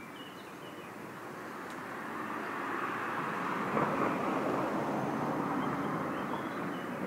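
A vehicle passing by, heard as a rush of noise that builds over the first few seconds, is loudest around the middle, and eases off toward the end.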